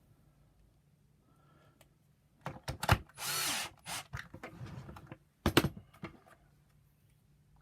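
Plastic parts of a vacuum power nozzle being handled and knocked together during reassembly: a few sharp clicks and knocks, with one short rasping burst a little after three seconds in and two more knocks towards the end.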